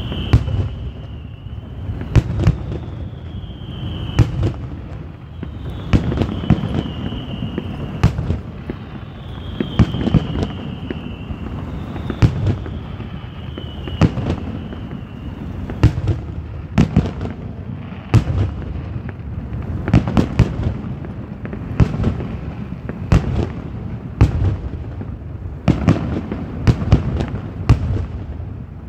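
Aerial firework display: shells bursting in a long irregular series of sharp bangs and booms over a continuous low rumble, with faint high tones gliding down in pitch through the first half.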